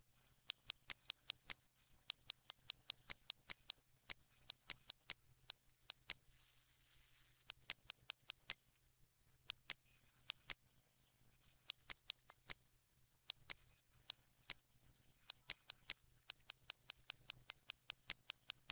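Computer mouse clicking many times, sharp single clicks coming irregularly and in quick runs, over a faint steady low hum.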